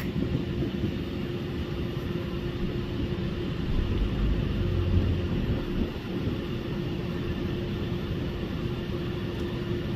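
A car running, a steady noise with a constant hum and a stronger low rumble about four to five seconds in.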